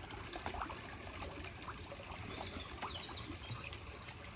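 Water trickling and splashing in a koi pool as a crowd of koi take food at the surface, with many small irregular pops and splashes.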